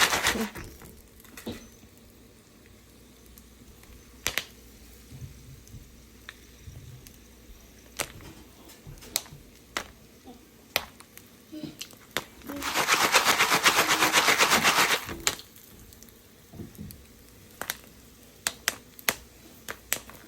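Popcorn kernels popping in a stovetop pan: scattered single sharp pops, with a dense run of rapid pops and rattling lasting about two seconds midway through.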